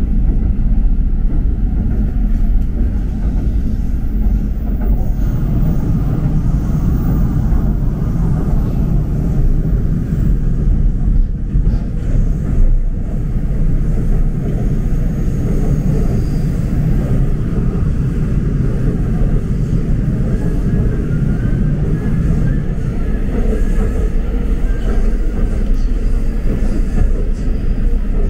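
Seoul Metro Line 2 subway train running, a steady low rumble heard from inside the car.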